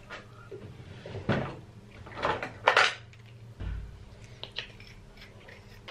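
Knocks and clicks of an electric toothbrush and its brush head being handled at a bathroom counter, with a dull thump about halfway through and a few small clicks after it. The toothbrush motor is not running.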